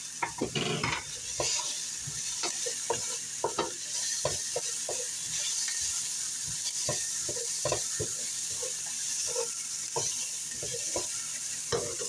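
Wooden spoon stirring and scraping chopped onion and garlic around a stainless steel frying pan, with many short irregular knocks of the spoon on the pan over a steady sizzle of the onions and garlic sautéing in olive oil.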